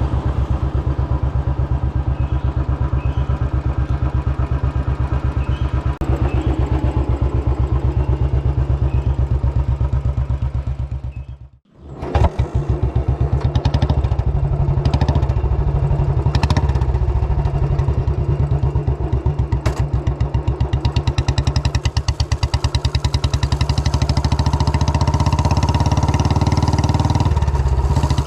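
Royal Enfield Bullet single-cylinder motorcycle engine running with a rapid, even exhaust beat. About halfway through, the sound drops out for a moment and comes straight back, with a less even beat afterwards.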